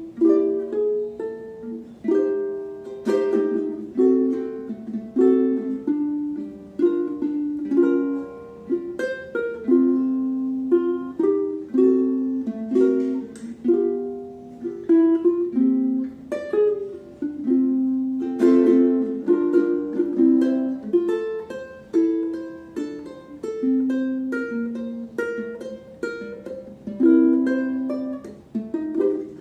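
Maestro Island Series UT-MR SB G ukulele played fingerstyle: a continuous solo of plucked single notes and chords in a jazz-style arrangement, with a warm tone.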